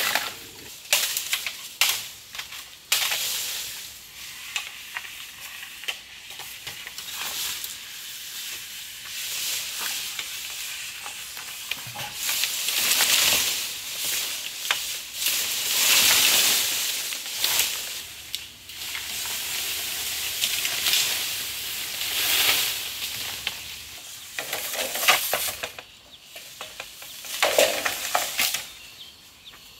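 Cut green bamboo poles dragged through leafy bamboo and dry leaf litter, their foliage rustling in swelling waves. Sharp knocks and snaps come in the first few seconds and again near the end.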